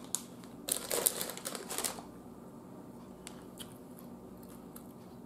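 Ruffles potato chip bag crinkling as a hand rummages in it for a chip, in a burst lasting about a second that starts near the first second; a few faint ticks follow.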